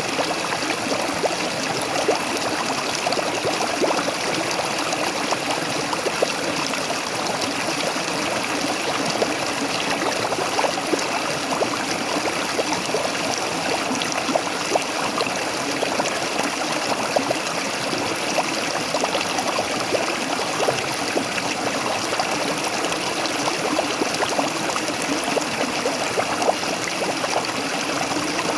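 Waterfall: a steady rush of falling water, with many small splashes and trickles over it.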